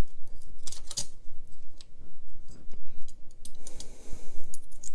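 Parts of a disassembled Civivi Crit folding knife being handled and pulled apart by hand: scattered light clicks and scrapes of small steel pieces against each other.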